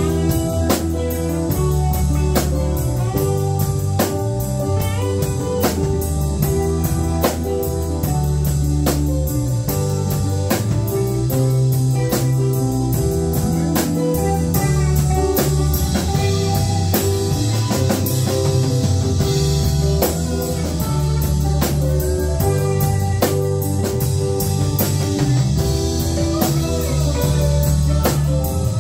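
A band playing an instrumental piece: electric guitar, bass guitar and drum kit over a steady beat. The cymbals swell twice in the second half.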